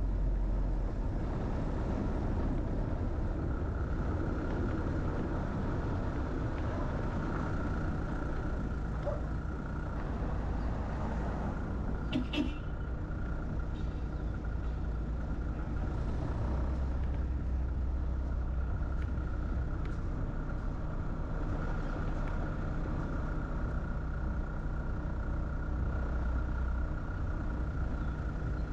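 Steady engine and road noise of a vehicle driving along a paved road, with one short click about twelve seconds in.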